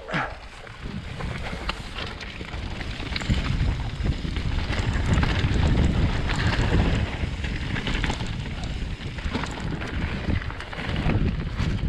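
Wind rushing over the microphone as a Trek Slash 8 mountain bike rides down a rough trail, with the bike's frequent rattles and knocks over the ground.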